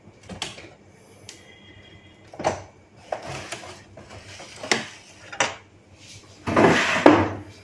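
Plastic clicks and knocks as the casing of a Canon G3060 ink-tank printer is handled and its scanner unit lifted open, with a longer, louder rubbing noise near the end.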